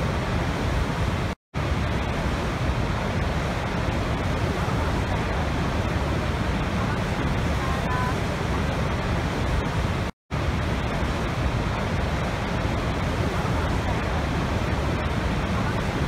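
Steady, dense rushing of a huge waterfall, Niagara's Horseshoe Falls, heard from beside the brink where the river pours over the edge. The sound cuts out completely for a split second twice, about a second and a half in and again about ten seconds in.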